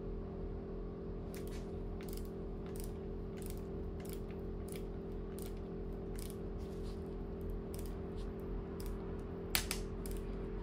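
Torque-wrench ratchet clicking in single strokes, about one click every half second to second, as it tightens the clamp bolt of a lock-on motorcycle handlebar grip toward 5 Nm; the loudest clicks come near the end. A steady low hum runs underneath.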